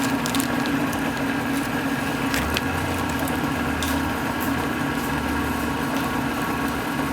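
Electric motor of an industrial bartack sewing machine humming steadily at an even pitch, with a few faint clicks; a deeper hum joins about two and a half seconds in.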